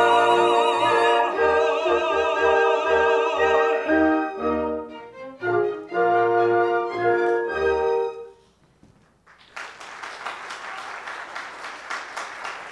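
Close of an operatic duet: voices hold final notes with wide vibrato over a pit orchestra, which plays a run of closing chords and stops about eight seconds in. After a short pause the audience breaks into applause.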